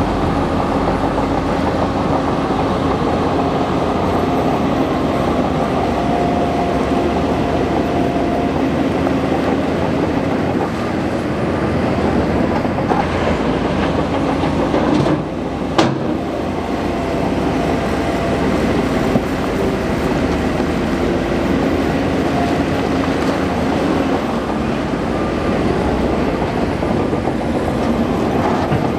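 Bulldozer at work: its diesel engine runs steadily under the clatter of its tracks, with a single sharp click about halfway through.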